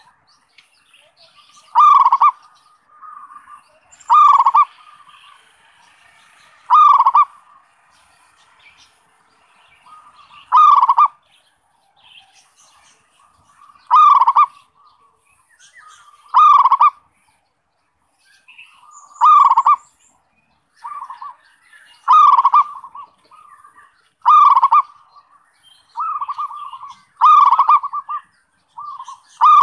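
A local zebra dove (perkutut) singing. It gives a loud cooing note about every two to three seconds, around eleven in all, with softer short coos in between.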